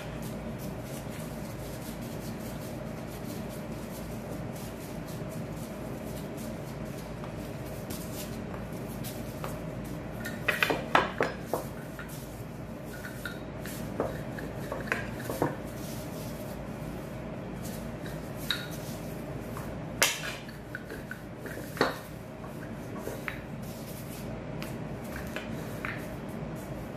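A knife and a wooden rolling pin clicking and knocking on a kitchen countertop as they are handled and set down. There is a quick cluster of sharp clicks about ten seconds in, then single knocks every few seconds, over a steady low hum.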